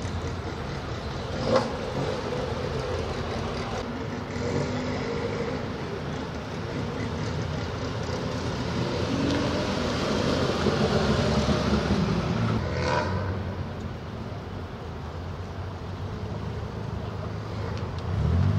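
Classic cars driving slowly past one after another with their engines running, growing louder as one goes by in the middle. There is a sharp knock about a second and a half in.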